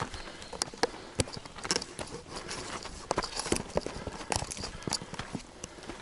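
A hiker's footsteps on a muddy dirt trail scattered with leaves and stones: an uneven run of steps, a few each second.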